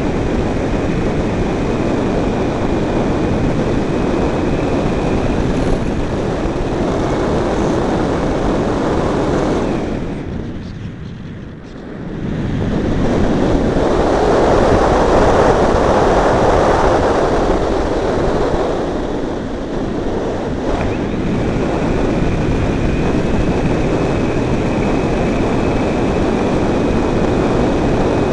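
Multiplex Blizzard electric RC model plane flying, a faint steady high motor-and-propeller whine heard under heavy wind noise on the microphone. The sound drops away sharply about a third of the way in, then swells louder for several seconds before settling back to the steady whine and wind.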